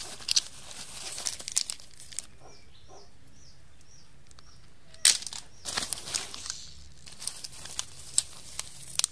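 Dry leaf litter crackling and rustling in irregular bursts as a hand rummages through it picking up land snails, with a quieter stretch and one loud sharp crack about five seconds in.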